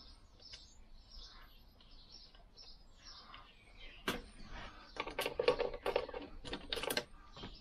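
Light metallic clicks and clinks of Lambretta gearbox parts being handled and turned by hand, a single click about four seconds in and a quick cluster between about five and seven seconds in. Faint bird chirps sound before that.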